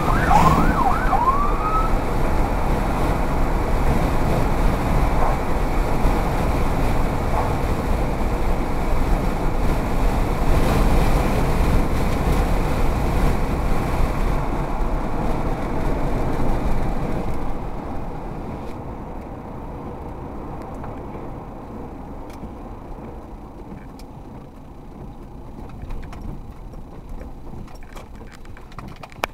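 Car driving on a wet road, heard from inside the cabin: steady tyre and engine noise, with a few brief warbling tones near the start. The noise drops off a little past halfway as the car slows down.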